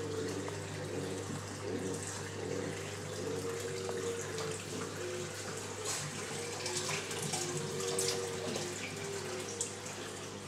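Steady running, splashing water from a large reef aquarium's circulation and filtration, over a constant low hum.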